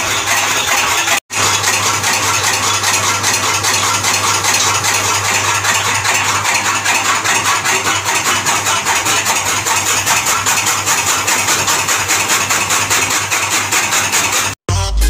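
Electric motor-driven chaff cutter running, its belt-driven flywheel blades chopping green fodder with a fast, even chatter over a steady low hum. The sound breaks off for an instant about a second in.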